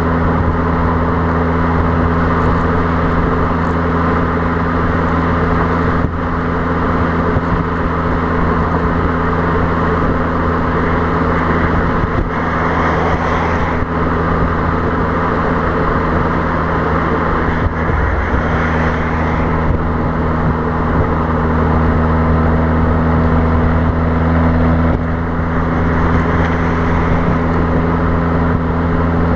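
Fiat Abarth 595's 1.4-litre turbocharged four-cylinder exhaust note at a steady motorway cruise, picked up right beside the tailpipes, with wind noise on the microphone. The note wavers briefly about 18 seconds in and then settles back to the same steady pitch.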